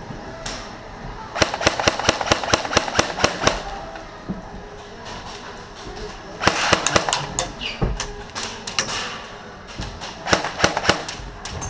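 Airsoft guns firing in rapid bursts of sharp pops: about ten shots in quick succession starting a second and a half in, then further bursts around six, eight and ten seconds in.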